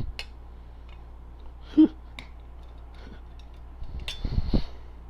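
Clicks and knocks of small metal parts being handled while a Simplex 4251-20 pull station is taken apart: a sharp knock just under two seconds in and a short run of knocks near the end.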